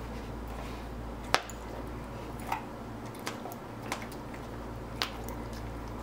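Basset hound eating a slice of pizza off a tile floor: a handful of short, sharp clicks and smacks as it chews, the loudest about a second in, over a steady low hum.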